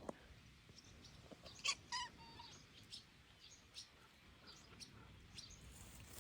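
Faint, scattered chirps of small birds, with two louder short calls about two seconds in. A sharp click sounds right at the start.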